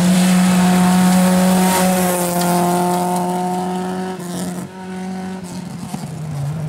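Rally car engine held at high revs as the car drives past on a gravel stage. The engine note breaks off briefly about four seconds in, then carries on at a lower pitch as the car pulls away.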